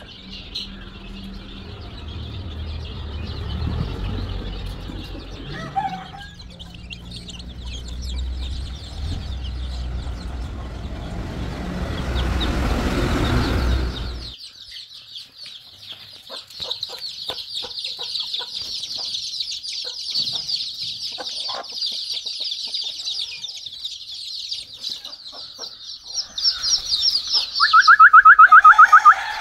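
A crowd of young chicks cheeping continuously and high-pitched, with a low rumble under it in the first half. Near the end a much louder, rapidly repeated bird call comes in.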